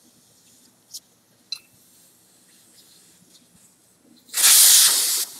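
Air rushing out of a motorcycle tyre's valve stem as the valve core is unscrewed free: a sudden loud hiss about four seconds in that lasts about a second, then drops to a softer steady hiss as the tyre deflates. Before it, a couple of small clicks from the valve-core tool.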